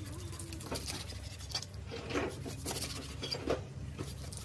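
Kitchen knife sawing through a catfish body into steaks, the blade scraping and knocking on a wooden chopping block in a run of short, irregular clicks and scrapes, over a steady low hum.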